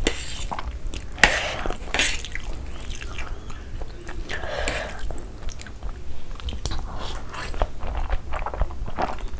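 Close-miked eating sounds of a person slurping and chewing saucy black bean noodles: wet mouth clicks and smacks, with noisy slurps near the start, between one and two seconds in, and again around four and a half seconds.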